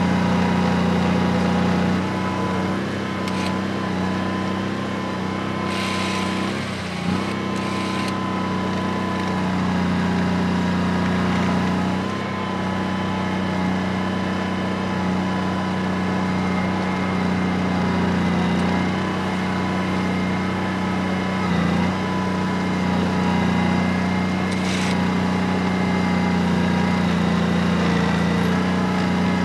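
Snow groomer's engine running steadily under way, with a few short hissing bursts over it.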